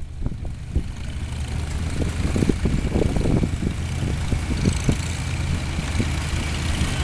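Several vintage farm tractors, mostly red Farmalls with a green John Deere, running at low speed as they drive slowly past: a steady low engine rumble broken by uneven exhaust puffs.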